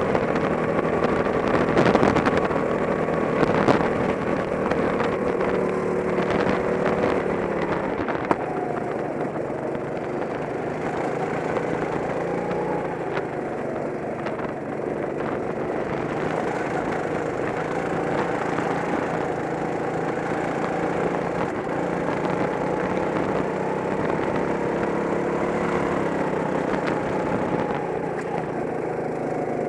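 Racing kart engine heard from the driver's seat, running hard with a steady buzz. It drops in pitch about a quarter of the way in as the kart slows, then climbs slowly again as it accelerates. There are a few knocks near the start.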